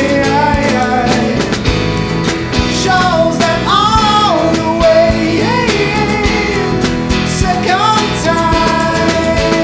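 Background song with guitar and a singing voice.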